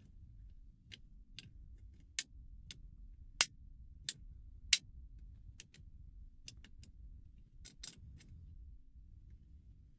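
Irregular sharp metallic clicks and ticks of a wire pick and tension tool working the levers of a 3-lever mortice lock, with several louder clicks in the first half, over a faint low hum.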